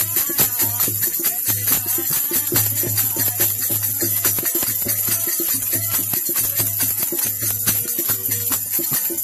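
Devotional bhajan music: a harmonium plays a melody over a steady dholak rhythm, with a constant metallic jingling of small hand percussion on top.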